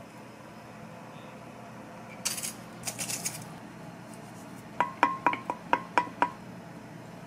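A utensil scrapes briefly against kitchenware twice. Then come about seven quick, sharp clinks that ring with the same tone, like a spoon tapping against a pot or dish.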